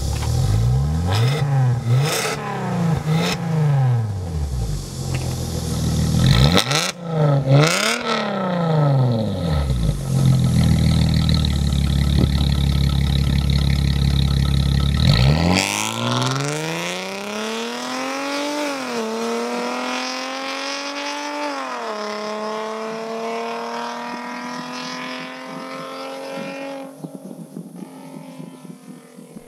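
Mercedes-Benz W204 C300's V6 through an aftermarket Fi valved exhaust (catless pipes, X-pipe, valved quad-tip muffler): a string of free revs with a few sharp cracks, then a held high rev. About halfway through, the car pulls away accelerating hard through two upshifts, the note fading as it drives off.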